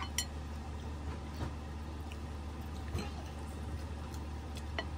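Steady low hum of room tone with a few faint clicks of dishes and cutlery.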